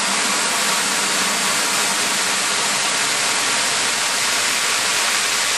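Hybrid rocket motor firing gaseous oxygen over a Plexiglas fuel grain through an aerospike nozzle: a loud, steady, even rushing roar.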